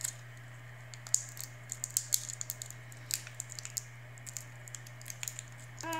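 Tootsie Roll's twisted candy wrapper being picked at and unwrapped by fingers: a run of irregular, sharp crinkling clicks.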